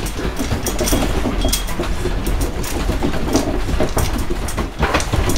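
A room shaking in a strong earthquake: a steady low rumble with continual rattling and clattering of loose objects.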